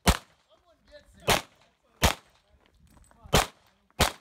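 Five handgun shots fired in a stage run, each a sharp crack, unevenly spaced roughly a second apart.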